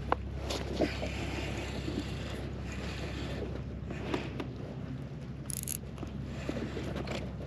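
Wind and water moving around a fishing kayak, with a steady low hum underneath and a few small knocks and taps.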